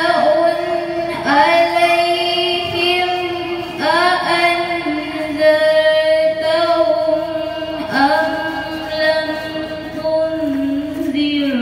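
A female voice chanting Qur'anic recitation in the melodic tajwid style, with long held notes in phrases of a few seconds each and the pitch wavering slightly within each note.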